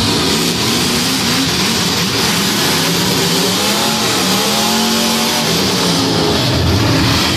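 Demolition derby cars' engines running and revving together across the arena. One engine revs up and drops back about four seconds in.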